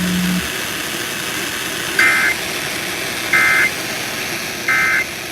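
Emergency Alert System end-of-message data signal: three short, identical warbling digital screeches about 1.4 seconds apart, marking the end of the tornado warning. It is heard received off FM radio over steady hiss, and a low hum cuts off about half a second in.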